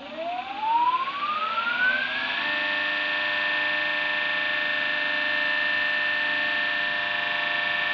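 Circa-1920 Bergmann three-phase slip-ring induction motor, its slip rings bridged, running up to speed. Its whine rises steadily in pitch, levels off about two and a half seconds in, and then holds steady as the motor runs at full speed.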